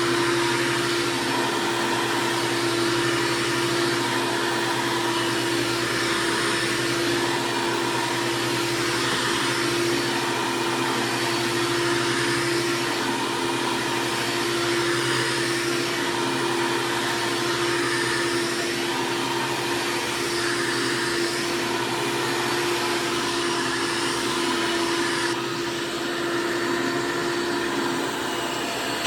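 2004 Hoover C1415 vacuum cleaner running steadily, its motor giving a constant whine with a strong steady hum tone.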